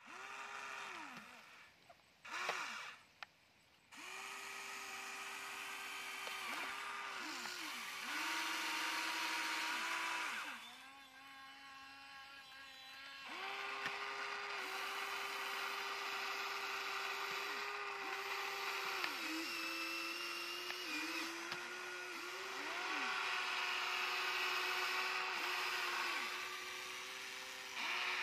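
Electric motors of a Huina radio-controlled scale excavator whining as it works its arm and bucket, starting and stopping over and over, the pitch sagging each time a motor stops. A quieter stretch near the middle carries a lower whine.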